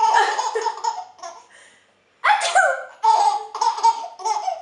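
A baby laughing in two bouts of rapid, high-pitched giggling, with a short pause between them.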